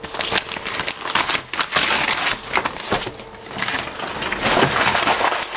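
Packing paper being crumpled and handled, a dense crinkling crackle with a brief lull about three seconds in.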